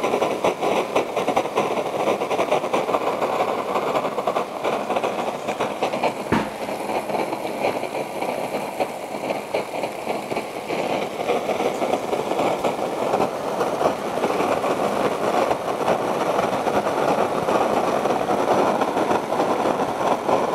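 Copper coil alcohol jet stove burning steadily under an uncovered pot of water at a rolling boil, a continuous rushing noise. It is still running strongly just after the water has come to the boil. One sharp knock comes about six seconds in.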